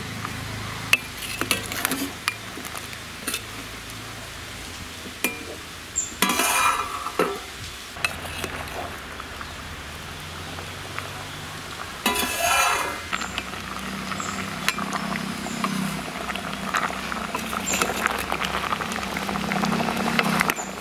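Steel ladle clinking against a stainless steel pot and scraping through chunks of elephant yam as they are stirred in simmering liquid. There are sharp clinks in the first few seconds and two longer scrapes about six and twelve seconds in, with the pot bubbling through the second half.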